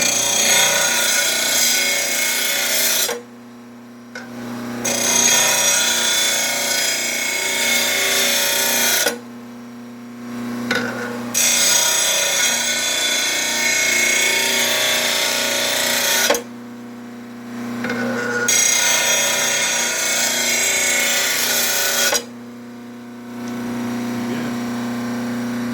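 RBG712 blade sharpener's grinding wheel running with a steady motor hum, while a lawn mower blade is pressed against it in four passes of a few seconds each, each pass a loud, hissing grind. These are the passes that sharpen the blade's cutting edge at 30 degrees.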